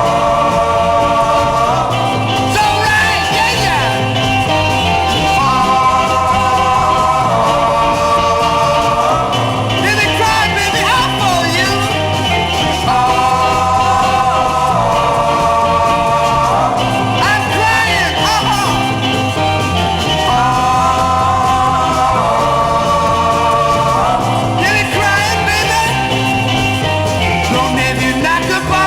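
1960s garage-rock recording playing: a stretch without lyrics where held chords change every couple of seconds over a steady repeating bass pattern, with a few short wavering lead or vocal lines on top.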